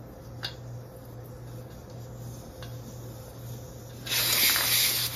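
Fat e-bike tyre letting its air out through the valve stem while the valve core is unscrewed: a few small clicks of the tool at first, then about four seconds in a sudden loud hiss as the valve core comes out and air rushes from the tyre.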